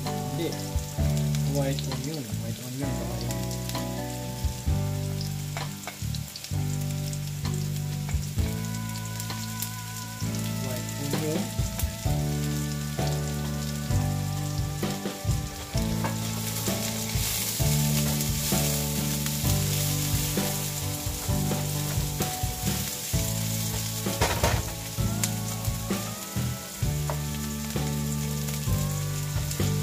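Chopped garlic and onion sizzling in hot olive oil in a nonstick frying pan, with a spatula stirring and scraping through them, making scattered clicks against the pan.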